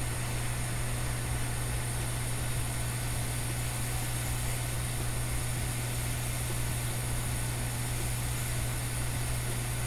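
Hot air rework station running steadily, its nozzle blowing a stream of hot air with a constant low hum while it reflows the solder under a replacement Tristar charging chip.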